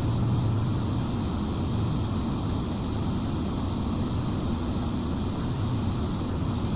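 Transmitter cooling fans running: a steady low hum and rush of moving air that does not change.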